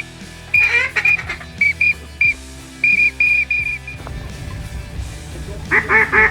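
Waterfowl whistle blown to call ducks: short, high, steady toots broken by quick trilling runs. Near the end it gives way to a fast run of quacks.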